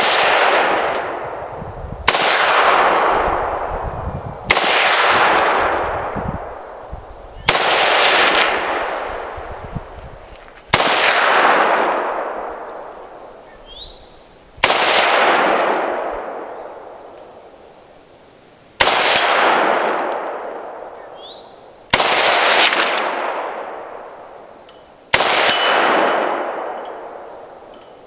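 A DDI milled AK-47 in 7.62x39 fired semi-automatically in slow, aimed shots, about nine rounds spaced two to four seconds apart. Each shot trails off in a long echo.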